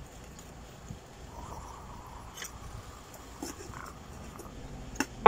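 A few faint clicks and clinks of a metal fork and spoon against a plate and an aluminium rice pot over quiet room tone, with a sharper click just before the end.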